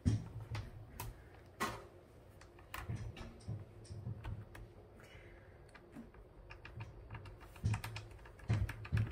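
Irregular small clicks and taps of the face-mask clips and screw hardware against a Schutt F7 football helmet's shell as a clip screw is turned tight, with a few louder knocks near the end.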